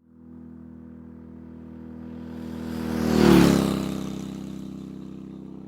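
A motor vehicle passing by. Its engine sound swells to a peak about three seconds in, drops in pitch as it goes past, and then fades away.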